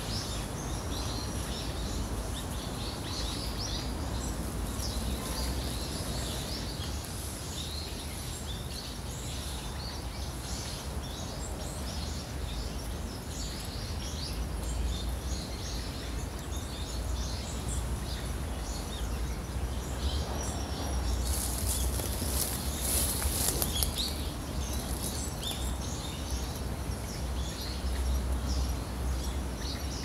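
Small songbirds chirping and singing over the steady rush of a small forest waterfall, with a low rumble underneath. A little past the middle, a high buzzy trill stands out for about three seconds.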